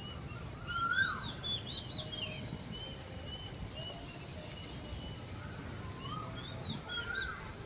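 Birds chirping and calling in short rising and falling whistled notes, over a steady low outdoor rumble.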